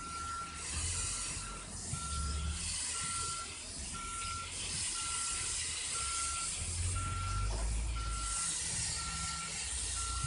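Electronic warning beeper sounding one steady-pitched beep about once a second, over a steady hiss and a low rumble.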